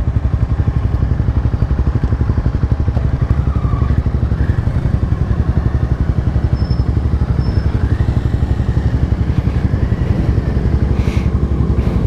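Honda CBR300R's single-cylinder engine running steadily while the bike is ridden, its exhaust pulsing in a rapid even rhythm.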